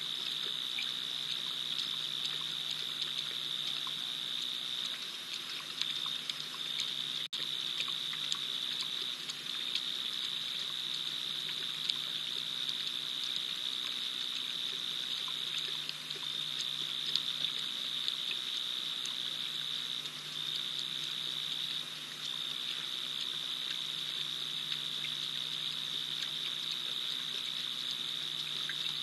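Night insect chorus at an African waterhole: a steady, unbroken high-pitched trill that dips out briefly now and then.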